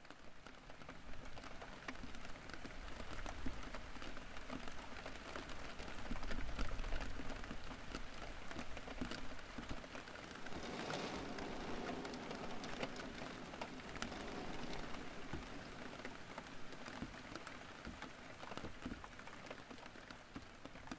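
Steady rain falling, with individual drops ticking and pattering on wet surfaces.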